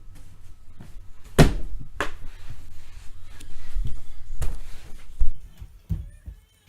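A series of knocks and clunks as a door and its makeshift cork-and-screw plug in the empty knob hole are handled. The sharpest knock comes about a second and a half in, with a few more spread through, over low rumbling handling noise.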